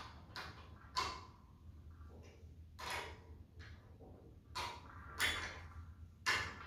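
Scattered sharp clicks and taps, about seven at irregular intervals, as a small bolt is snugged up through a slotted wooden block clamped around a steel pipe. A low steady hum sits underneath.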